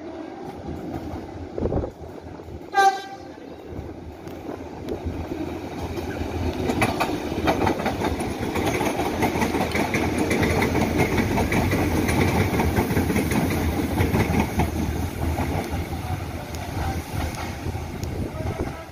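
A multiple-unit passenger train gives one short horn blast about three seconds in. It then passes close by with a rumble of wheels on rail that builds, is loudest in the middle and eases off near the end.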